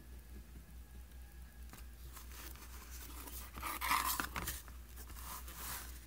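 A cased leather mask piece sliding and turning on a cutting mat: scraping rustles, loudest about four seconds in and again shortly before the end.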